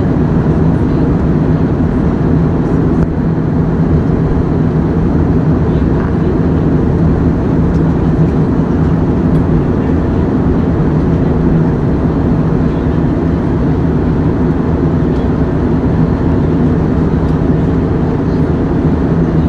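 Jet airliner cabin noise in cruise: a steady low roar of engines and rushing air, with a faint hum.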